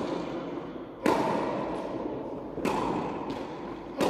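Tennis ball struck with a racket and bouncing on a hard indoor court: three sharp pops about a second and a half apart, each ringing on in the hall's echo.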